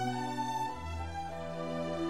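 Instrumental background music with long held notes; the low note changes about three-quarters of a second in.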